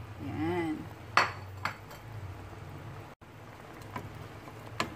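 A plate and a cooking utensil clinking against a stainless-steel pot as chicken pieces are tipped in: two sharp clinks about a second in, then a few faint knocks near the end, over a low steady hum.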